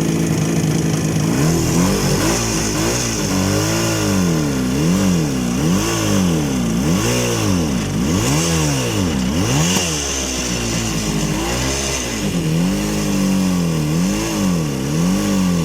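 IZh Jupiter 5 motorcycle's two-cylinder two-stroke engine revving up and down over and over, about once a second, with a short steadier stretch about twelve seconds in.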